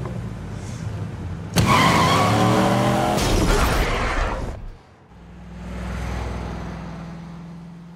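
Car tyres squealing in a hard skid, starting abruptly about a second and a half in with a pitch that falls, then dying away near the middle. A low rumble runs before the skid and again after it.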